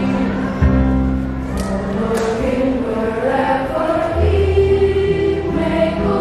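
Children's choir singing over sustained low accompaniment notes that shift pitch twice.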